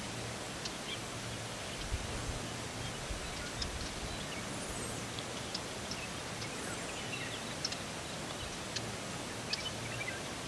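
Outdoor ambience in wooded country: a steady hiss with scattered short high chirps and ticks and a few low thumps.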